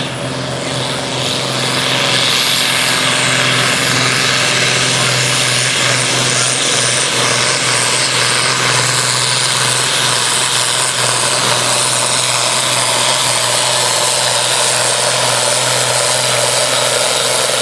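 Pulling tractor's engine running hard and steady under full load during a pull. It builds over the first couple of seconds, then holds at a constant high pitch and volume.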